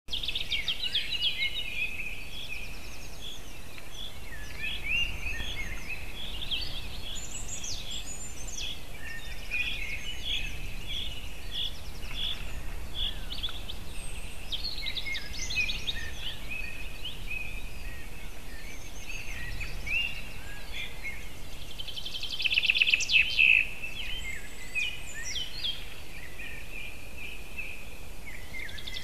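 Several small songbirds singing, their overlapping songs and chirps repeating, with a louder rapid trill about 22 seconds in.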